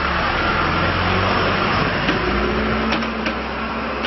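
John Deere 310SG backhoe loader's diesel engine running steadily, with a few light clicks near the end.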